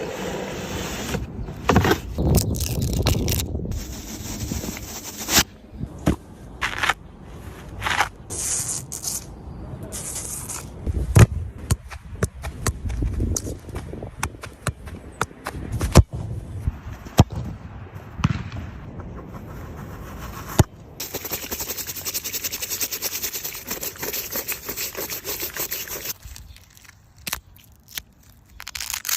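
Packaging and products being handled during an unboxing: irregular scraping, rustling and crackling with sharp clicks and knocks, and a few seconds of steadier rustling about two-thirds of the way through.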